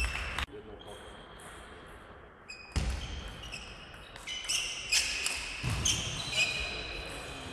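Table tennis rally: the celluloid or plastic ball clicking sharply off bats and table, with shoe squeaks on the hall floor. It is sparse at first and grows busy about halfway through.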